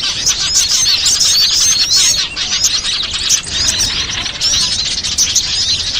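Dense chorus of many small birds chirping and twittering over one another without a break: a bird-lure (pikat) recording of small wild birds' calls, used to draw them in.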